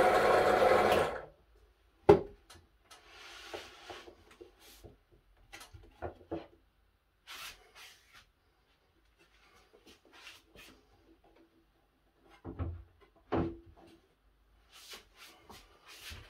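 Benchtop drill press running, then switched off and winding down about a second in. A wooden board is then handled on the drill table: a sharp knock about two seconds in, the loudest sound, then scraping and rubbing, and two more knocks near the end.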